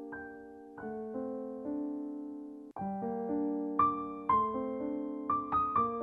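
Background piano music: held notes and chords, which break off briefly and come back louder and higher about three seconds in.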